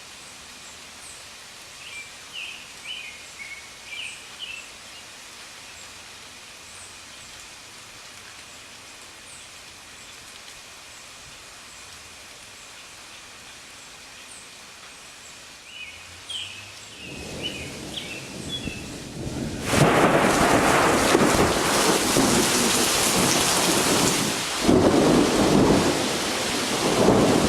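Steady rain, then a long roll of thunder that builds about two-thirds of the way in and rumbles loudly for several seconds. A few short chirps sound over the rain early on.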